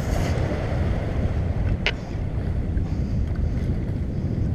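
Wind buffeting the microphone over the wash of waves against jetty rocks, a steady low rumble. A single short click comes about two seconds in.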